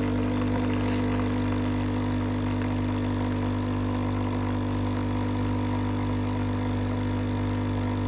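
Nescafé Dolce Gusto Mini Me coffee machine's pump buzzing steadily as it brews, pushing coffee out through the pod into the cup.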